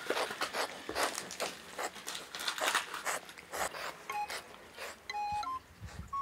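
Cats licking and chewing matatabi (silvervine) powder off a tatami mat: a run of wet clicking licks, about three a second. A little over halfway through, background music with single bell-like notes comes in.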